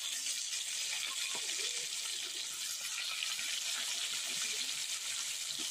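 Fish pieces deep-frying in hot oil in an aluminium kadai: a steady, even sizzle of bubbling oil.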